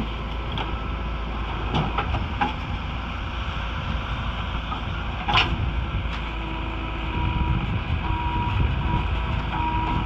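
JCB 3DX backhoe loader working, its diesel engine running steadily under load as the bucket dumps soil and digs back into the mound. Clanks and knocks come from the bucket and arm, the loudest about five seconds in, and a whine comes and goes in the last few seconds as the arm digs.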